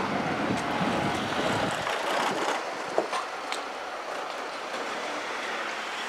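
Kintetsu 20000 series electric train running past, its wheels clacking over rail joints. The deep rumble falls away about two seconds in as the last cars move off, with a couple of clacks around three seconds in.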